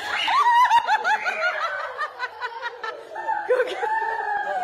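High-pitched human laughter: a quick run of about eight giggles in the first two seconds, then looser, scattered laughing sounds.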